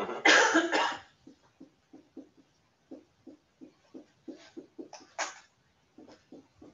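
Dry-erase marker tapping short strokes onto a whiteboard, about three quick ticks a second, as tick marks are drawn along a graph axis. Around four to five seconds in come two longer squeaks of the marker as labels are written. A man's voice is briefly heard at the start.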